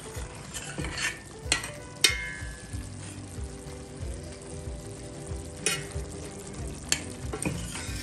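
Mutton curry sizzling in its pan while being stirred. A utensil knocks against the metal pan a few times, the loudest knock, with a brief ring, about two seconds in.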